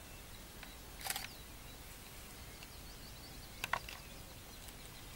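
Digital SLR camera shutter firing twice: a sharp click about a second in, then a quick double click a little before four seconds in.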